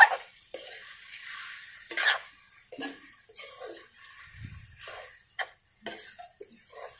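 Steel ladle scraping and knocking irregularly against a steel kadai as a frying egg and taro root curry is stirred, over a light sizzle.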